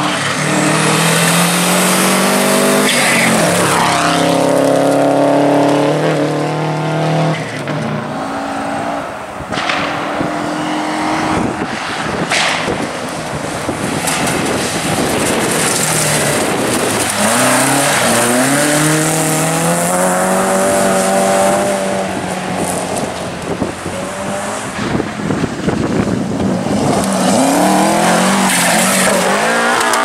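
Rally cars, Subaru Imprezas and a classic BMW saloon, passing at full throttle on gravel one after another. Each engine revs up and drops with gear changes, over the hiss of tyres on loose gravel.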